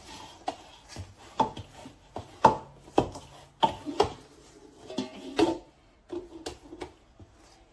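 A run of irregular knocks and clinks, about ten in six seconds, some ringing briefly, as a utensil strikes a mixing bowl while cornmeal-and-flour fagao dough is mixed.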